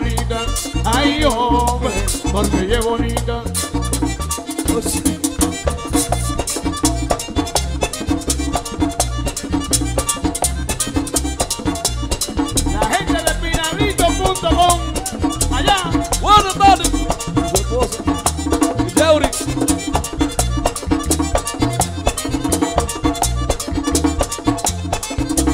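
Merengue típico band playing an instrumental passage: accordion melody over a steady fast beat of scraped güira, drum and bass.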